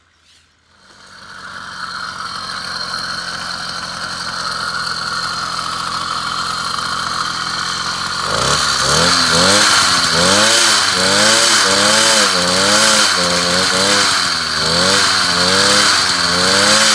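A motorized bicycle's small single-cylinder, chain-drive kit engine runs, getting louder over the first couple of seconds as the bike rides up. From about eight seconds in it is revved up and down at a standstill, its pitch rising and falling about once a second.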